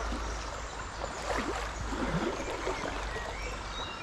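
Trout river water flowing and rippling steadily, with a couple of brief swishes about halfway through.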